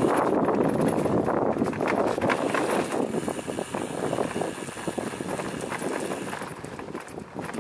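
Bicycle tyres crunching and crackling over a gravel path, with the bike rattling over small bumps and wind buffeting the microphone. It gets a little quieter near the end.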